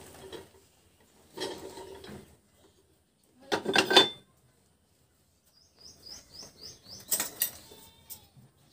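Steel parts of a shaft puller and an e-rickshaw BLDC motor's magnet rotor clanking and scraping as they are handled, loudest about four seconds in as the rotor is lifted out. Near the end comes a quick run of about six high chirps, then a sharp metal clink.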